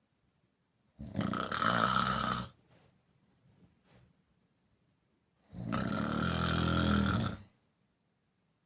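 A person snoring: two loud, rasping snores, each about a second and a half long, the second coming about four and a half seconds after the first.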